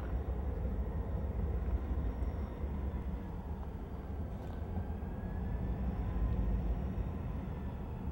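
BNSF diesel-electric locomotives moving slowly, a steady low engine rumble with a faint whine above it.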